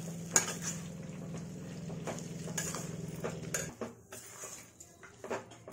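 Metal spatula stirring thick mashed-potato masala in a stainless steel kadai, scraping and knocking against the pan in short irregular strokes, with a sharp knock about half a second in.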